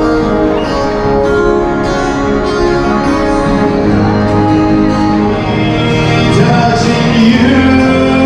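Live acoustic music: guitars playing with a singing voice, continuous and loud.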